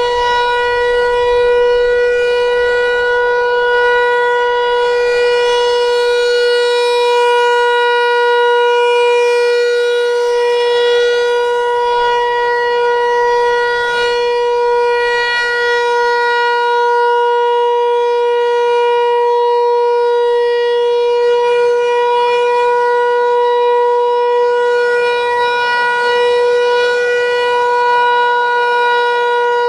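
Federal Signal Equinox outdoor warning siren sounding its Alert signal during a scheduled test: one steady tone held at a constant pitch, rich in overtones, with no rise or fall.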